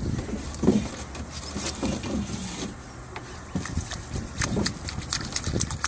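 Knife cutting through a striped bass's neck bone to take off the head: low scraping and handling sounds, then a quick run of sharp crackling clicks from about halfway through as the blade works through bone.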